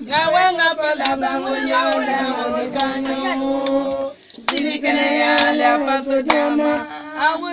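Women singing together in long held notes, with scattered hand claps. The singing breaks off briefly about four seconds in, then resumes.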